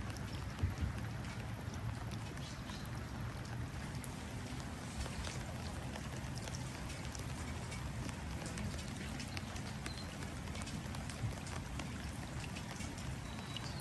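Steady rain pattering, many small drops falling into water, with a couple of brief, faint bird chirps near the end.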